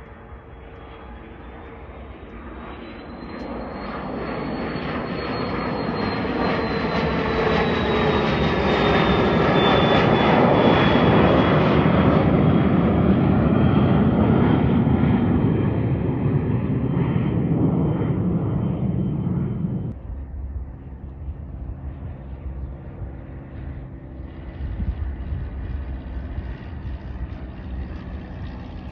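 Embraer Phenom 300 business jet's twin turbofans flying over: a broad jet roar swells over several seconds with a high whine that rises and then slowly drops in pitch as the jet passes overhead and moves away. It cuts off suddenly about two-thirds of the way through, leaving a much quieter outdoor background.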